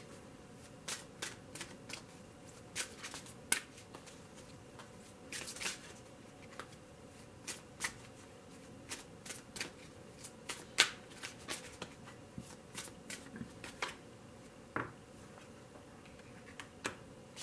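A deck of oracle cards shuffled by hand: a string of short, irregular snaps and flicks of cards against each other.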